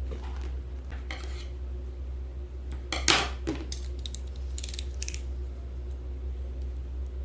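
Light clinks and rattles of small hard objects being handled, the loudest clatter about three seconds in, over a steady low hum.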